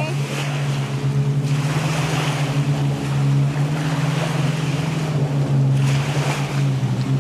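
Small sea waves breaking and washing onto the sand, swelling and easing, with wind on the microphone. Under it runs a steady low motor hum.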